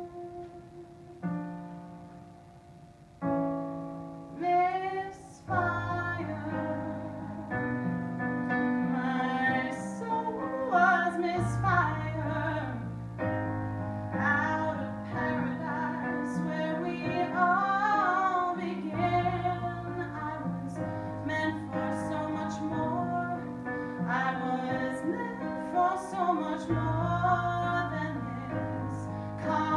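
A woman singing with her own keyboard accompaniment. It opens with a few sustained chords; her voice comes in about four seconds in, and low bass notes join soon after to fill out the accompaniment.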